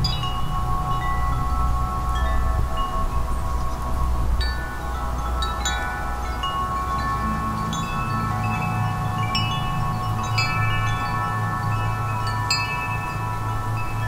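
Wind chimes struck irregularly by the wind, several clear tones ringing on and overlapping, with strikes coming more often after about four seconds. A steady low wind rumble lies underneath.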